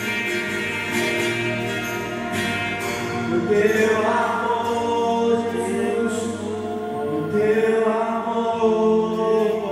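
Christian worship music with singing over long held chords.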